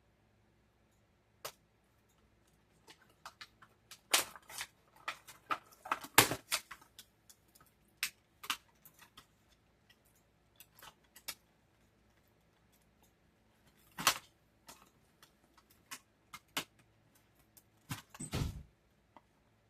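Handling sounds of unboxing a doll: scattered plastic clicks, taps and light rustling, busiest about four to seven seconds in, with a duller thump near the end.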